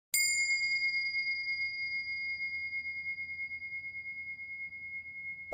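A single high bell-like ding, struck once and left ringing as one clear tone that fades slowly.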